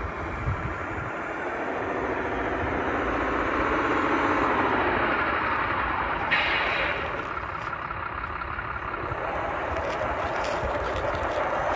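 Radio-controlled 8x6 semi truck model driving, with a running whine that glides up and down in pitch as the throttle changes. A short hiss comes about six seconds in.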